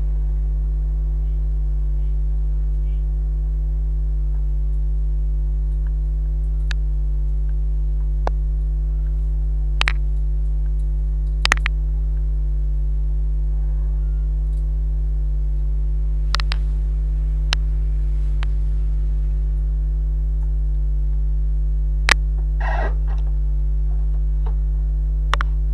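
Loud, steady electrical mains hum, a low buzz with a ladder of overtones, unchanging throughout. Sharp single clicks cut through it now and then, about eight in all.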